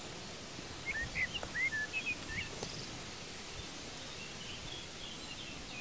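A small songbird chirping short, quick notes that slide up and down, a burst of them in the first half and fainter warbling later, over a steady rush of wind through the grass.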